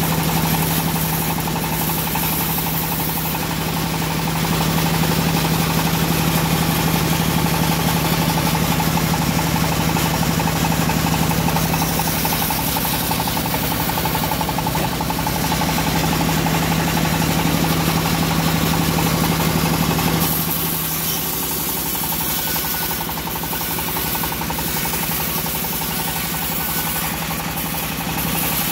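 Homemade band sawmill running with its blade cutting lengthwise through a teak log, a steady machine drone. About two-thirds of the way through the drone eases and gets quieter.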